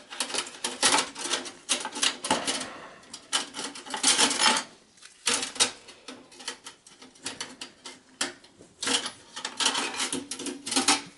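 Thin sheet-metal PCI slot brackets and their retaining clip being worked loose from a steel computer case: a quick run of light metallic clicks and clinks, with brief pauses between bursts.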